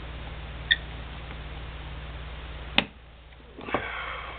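Two small metallic clicks, one about a second in and a sharper one near three seconds in, from handling the parts of a disassembled High Standard HD Military .22 pistol, over a steady low hum.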